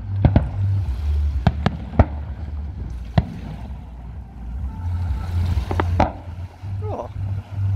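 Fireworks shells bursting in the distance: a series of sharp bangs, several in the first two seconds and two together near six seconds, over a low steady rumble of wind on the microphone.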